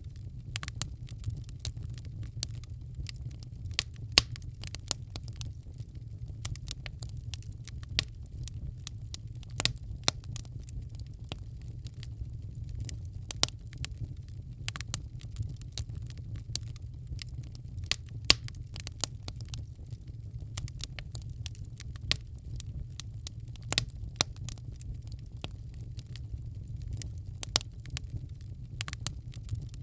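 Wood fire in a fireplace crackling, with irregular sharp pops and snaps over a steady low rumble of the flames.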